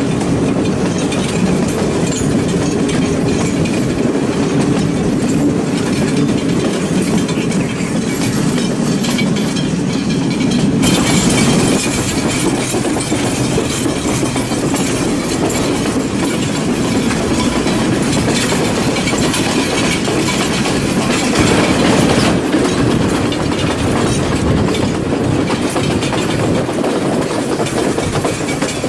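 Passenger train running on the rails, heard from on board: a steady rumble with the clickety-clack of the wheels over the rail joints. From about 11 s to about 22 s in, a brighter hiss rises over the rumble, then drops back.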